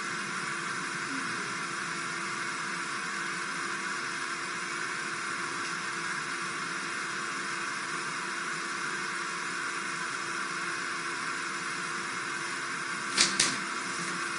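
Steady hiss of background noise with a faint hum, broken near the end by two sharp clicks in quick succession.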